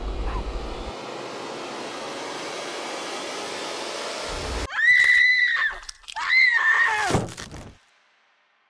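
A steady hiss, then two loud, high-pitched screams about a second apart, the second one dropping in pitch as it dies away.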